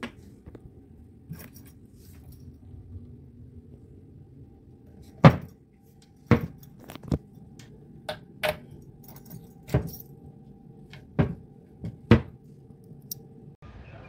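Keys on a carabiner ring jangling and the steel cable of a fridge lock clicking against its plastic lock body as it is handled: a series of sharp clicks and knocks starting about five seconds in, roughly one a second.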